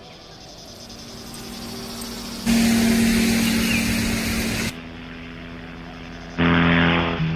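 Wind and road noise picked up by a handlebar-mounted camera on a moving road bike. It comes in short pieces that cut in and out abruptly, and a steady low hum runs through the two louder pieces.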